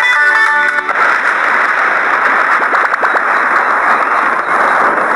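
Steady rain hiss that takes over when a plucked-string music track stops about a second in.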